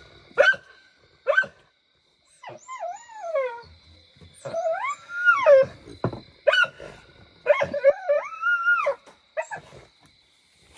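Pit bull-type dog barking at pigs behind a gate: short sharp barks mixed with three long, wavering whines that rise and fall in pitch.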